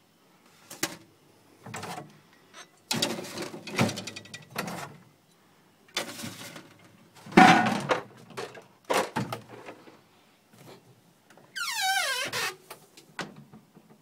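Rummaging in a refrigerator: a string of knocks and rattles as beer bottles are handled on the wire shelves. Near the end comes a squeak falling in pitch as the fridge door swings shut.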